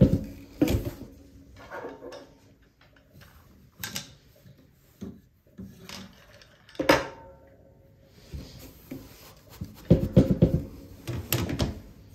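Rigid heddle loom being worked: rattling knocks from the heddle as it is moved to change the shed and beat the weft in, in a cluster at the start, single knocks about 4 and 7 seconds in, and another cluster near the end, with softer rubbing of yarn and shuttle between.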